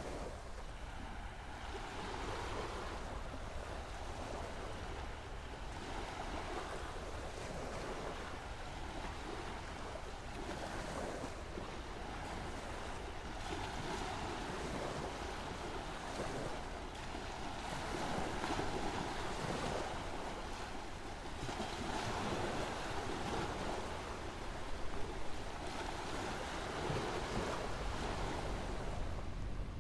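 Ocean surf washing in, a steady rush that swells and eases every few seconds, with some wind.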